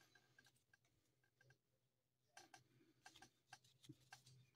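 Near silence with faint, scattered clicks of a stack of baseball cards being handled, more of them from about halfway in.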